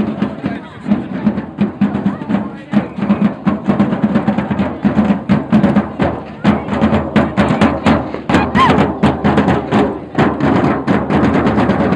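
Drums beating a fast, steady rhythm, with voices in the crowd.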